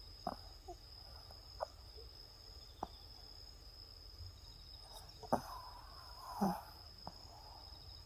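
A sleeping Maltese dog snoring and snuffling: a few soft, short, irregular snorts spaced a second or more apart, with a longer grunt near the end. A steady faint high-pitched tone runs underneath.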